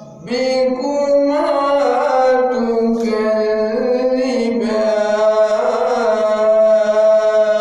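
A man reciting the Quran in a melodic tajweed style into a handheld microphone, holding long, slowly bending, ornamented notes after a short breath at the start.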